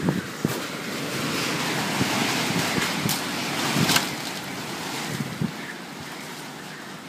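Typhoon wind blowing in gusts, a rushing noise that swells in the middle and eases near the end, with gusts knocking against the microphone.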